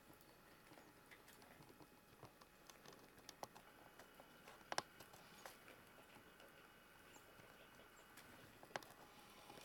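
Near silence with faint scattered ticks and taps, a sharper tick about five seconds in and another near the end.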